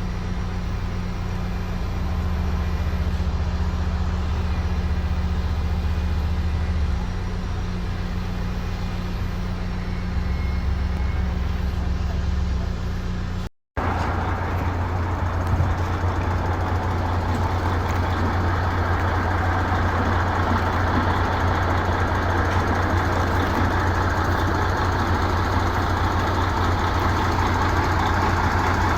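Engine of heavy construction machinery running steadily with a low hum, along with site noise. It breaks off for a moment about halfway through, then carries on louder and noisier.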